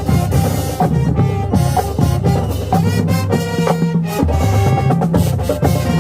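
Marching band playing: brass holding chords that change every second or so, over drums striking a steady beat.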